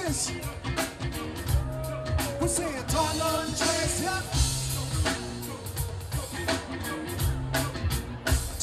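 Live band performing on an outdoor stage, heard through the PA from within the crowd: singing over a steady drum-kit beat and bass.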